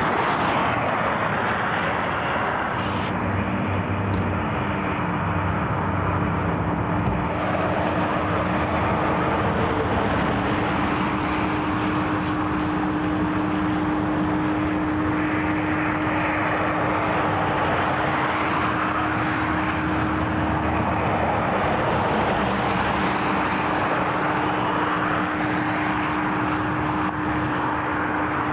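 Motor vehicle noise: a rushing sound that swells and fades several times, with a steady engine hum coming in about three seconds in.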